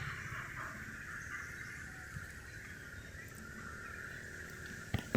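Steady high-pitched insect drone, with a couple of sharp knocks near the end.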